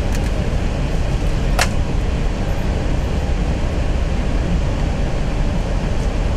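Steady cabin noise in an Airbus A320 flight deck while taxiing: a low rumble with an even rush of air. One sharp click cuts through about a second and a half in.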